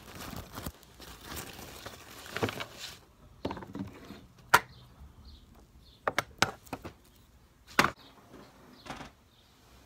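Handling noise from a phone camera being set in place on a wooden dresser: rustling close to the microphone, then several separate sharp knocks and thumps, the loudest about four and a half seconds in and near eight seconds.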